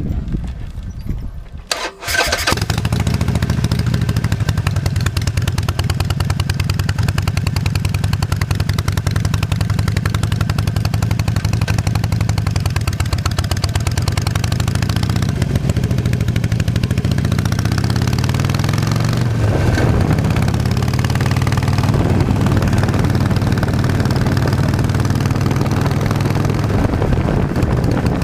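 Harley-Davidson Nightster's air-cooled 1200 cc V-twin starts up about two seconds in, then runs steadily, its pitch shifting a little a few times.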